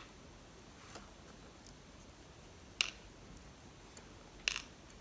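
Light clicks and taps of the lock's plug, pins and tools being handled while the pins are inspected: a handful of separate clicks, the two loudest about three and four and a half seconds in.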